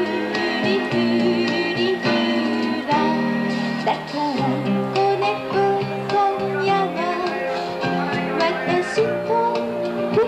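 A woman singing a song into a microphone over guitar accompaniment, holding long notes with vibrato from about three seconds in.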